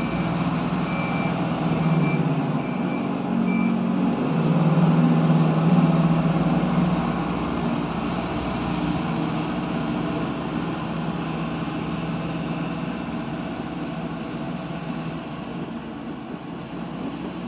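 Diesel engine of a Tata 340 excavator running steadily, with a travel alarm beeping about once a second for the first four seconds. The engine swells about five seconds in, then slowly eases off.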